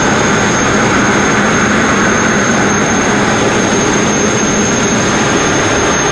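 Sandblasting nozzle blasting continuously: a loud, steady hiss of compressed air and abrasive grit striking a steel narrowboat hull to strip its old paint and rust, with a thin high whistle over it.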